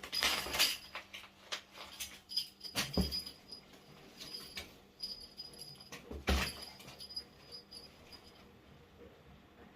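A dropped piece of paper rustling and skittering as a cat bats at it, with irregular light clicks and three louder knocks: one near the start, one about 3 seconds in and one about 6 seconds in. It dies down near the end.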